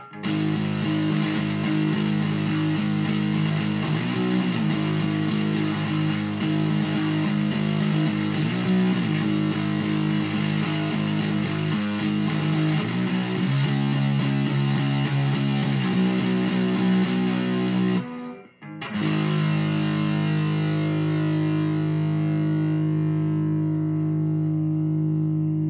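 Overdriven electric guitar with big single-coil pickups, played through a miked amplifier: sustained distorted chords, a brief stop about 18 seconds in, then a final chord left ringing.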